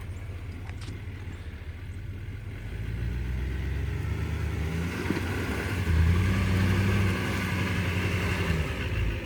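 Pickup truck engine revving under load while towing a trailer through deep mud, fighting for traction: a steady low run that builds about a third of the way in, rises in pitch and holds, then drops back just before the end.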